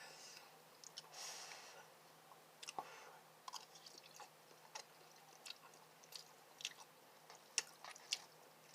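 Faint close-up chewing of spicy instant noodles: scattered small wet mouth clicks and smacks.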